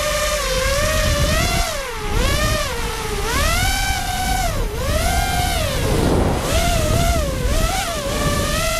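ImmersionRC Vortex 250 Pro FPV quadcopter's brushless motors and propellers whining as it flies, the pitch swooping up and down with each throttle change. A low wind rumble sits underneath on the onboard camera's microphone.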